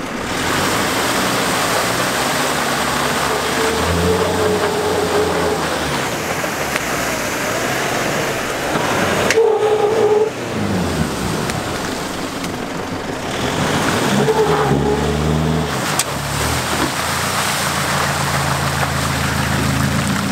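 Diesel engines of a Nissan Navara ute and a bogged Toyota Prado revving under load as the Navara tows the Prado out of deep mud on a recovery strap. The revs rise and fall repeatedly over a steady rush of tyre and mud noise.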